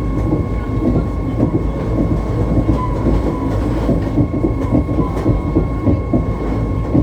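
Electric rack-railway train running, heard from the cab: a steady low rumble with irregular clatter and knocks from the wheels and track, over a constant high-pitched whine.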